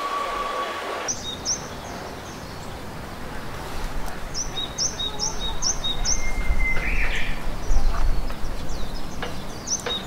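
A small songbird singing short runs of repeated two-part chirps, a high note then a lower one, about three a second, over steady outdoor background noise and a low rumble. For about the first second a steady tone with overtones plays, then cuts off.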